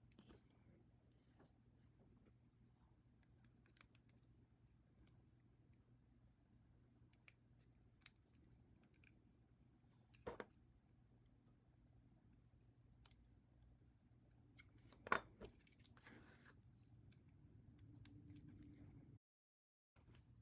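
Faint, scattered clicks and taps of small hard objects being handled, with a louder cluster about fifteen seconds in; the sound drops out completely for a moment near the end.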